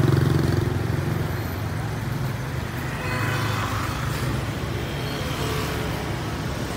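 City street traffic: a steady engine hum from nearby cars and vans, with the general noise of passing vehicles on a wet road.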